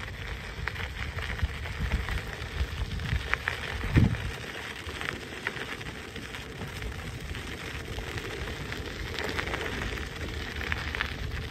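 Tyres of a Segway Loomo self-balancing transporter rolling over a gravel path: a steady crunching crackle with a low rumble, and one louder low thump about four seconds in.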